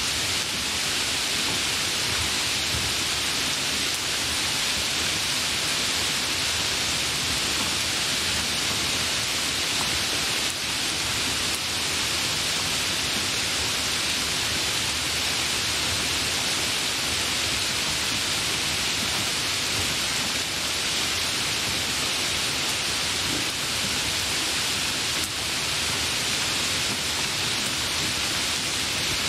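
Steady rainfall: an even, unbroken hiss of rain, brightest in the upper range.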